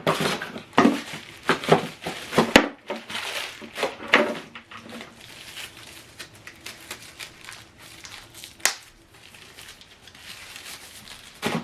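Plastic packaging crinkling and rustling as it is handled and unwrapped, busiest over the first few seconds with a sharp click about two and a half seconds in, then only a few quieter rustles.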